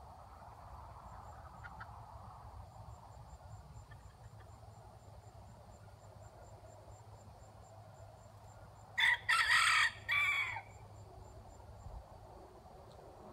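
Bantam rooster crowing once, about nine seconds in: a cock-a-doodle-doo in three parts, a short first note, a longer middle one and a last note that falls away.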